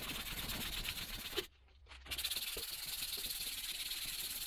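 A strip of sandpaper rubbed back and forth over a tractor shaft to clean it, a steady rasping hiss. It cuts out for about half a second near the middle, then goes on.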